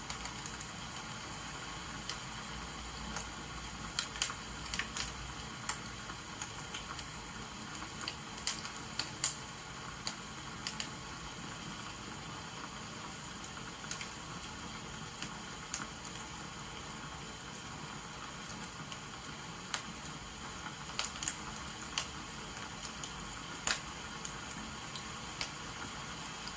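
Wood fire crackling, with irregular sharp pops and snaps over a steady hiss of rain.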